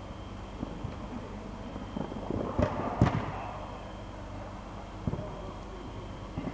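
A football kicked on an indoor pitch, a few sharp thuds that echo in the hall, the loudest about three seconds in, over a steady low hum.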